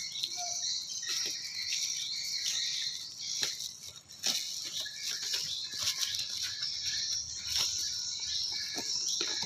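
Plastic and bubble-wrap packaging crinkling and rustling as a parcel is torn open by hand, with scattered sharp crackles and snaps.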